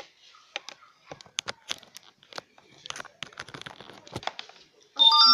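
Scattered clicks and crinkling of hands handling small things close to the microphone. Near the end a loud bell-like chime with several ringing tones starts.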